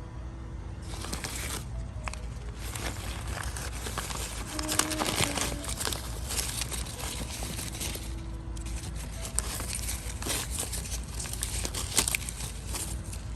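Packing material crinkling and crackling as potted succulents are unwrapped from a shipping box, with many small sharp crackles and a short pause a little past the middle.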